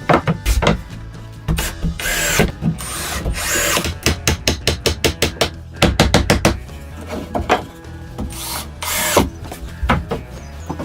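Tool work on wood: runs of sharp knocks and clicks with a few longer rasping strokes, about two, three-and-a-half and nine seconds in, over background music.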